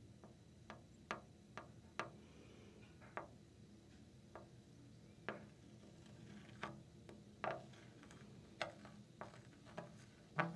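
The metal end of a paintbrush tapping lightly on window glass and frame: about fifteen sharp, irregularly spaced taps over a faint low hum.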